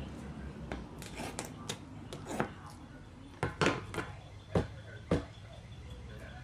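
Scissors and a roll of duct tape handled against a plastic trash-can lid: a string of sharp clicks and clacks, the loudest coming in the second half as the scissors are set down on the lid and the tape is worked.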